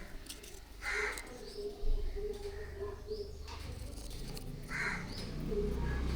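A bird calling twice, about a second in and again near the end, over a faint steady hum, with a short click or knock near the two-second mark.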